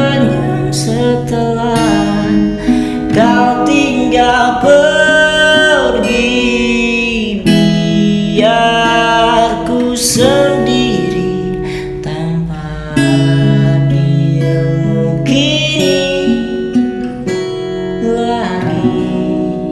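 Pop ballad music: an instrumental passage with a sliding, bending lead melody over strummed acoustic guitar and a steady bass line.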